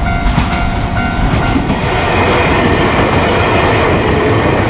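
Electric commuter train passing over a level crossing, its wheels clacking on the rails, while the crossing's warning bell rings.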